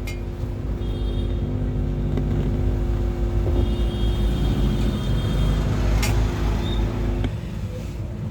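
Creative computer subwoofer giving out a loud, steady low mains hum through its input while being tested; the hum cuts off suddenly near the end, with a sharp click at the start and another about six seconds in. This hum is the sign that signal now passes through the amplifier after the volume control was replaced.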